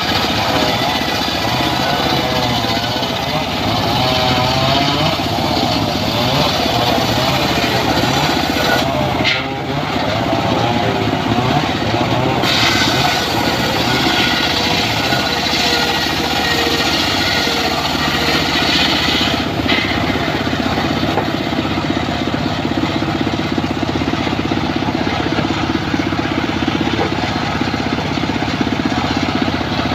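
Circular saw running continuously, cutting wood, with a harsher, higher hiss in stretches, clearest from about twelve to nineteen seconds in.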